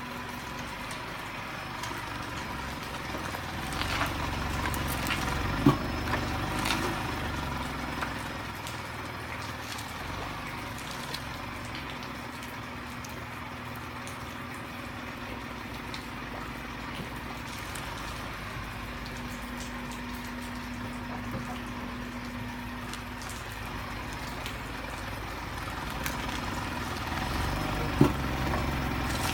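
Vehicles passing on a rain-wet road, over a steady hiss of water. The sound swells twice as a vehicle comes close, each time with a sharp knock: about six seconds in and near the end.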